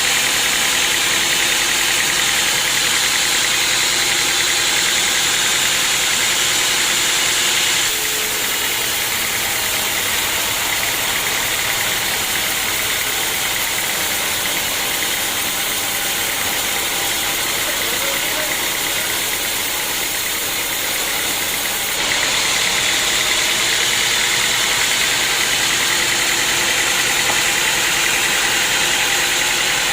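Sawmill machinery running steadily. It drops slightly in level about eight seconds in and jumps back up about twenty-two seconds in.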